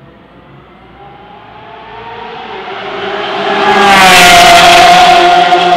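Lamborghini Aventador's V12 at full throttle, approaching and passing close by. It grows steadily louder to a peak about four seconds in, where its note drops in pitch as it goes past, and it begins to fade near the end.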